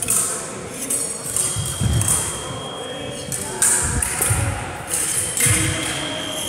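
Foil blades striking and ringing against each other in quick parry-and-attack exchanges, with heavy thumps of lunging feet landing on a wooden sports-hall floor. A steady high beep sounds twice, held for a couple of seconds each time, in the echoing hall.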